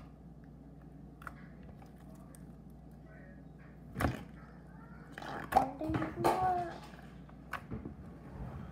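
Slime being stretched, folded and pressed by hand on a table while trying to blow a slime bubble: scattered small clicks, a sharp thud about four seconds in, then a denser cluster of sticky sounds a second or two later.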